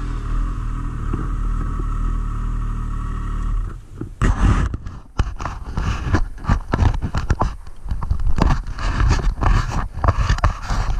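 Yamaha SRViper snowmobile running steadily along the trail, then easing off as the sled comes to a stop about four seconds in. After that, irregular rubbing and knocking close to the camera as a gloved hand handles it.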